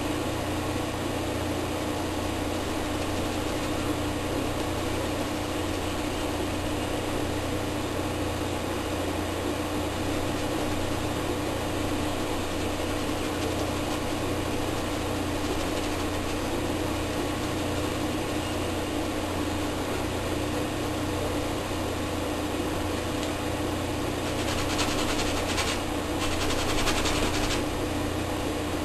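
Steady mechanical hum with a low drone, a faint steady tone and hiss, from a running machine. Near the end the hiss briefly grows louder for a few seconds.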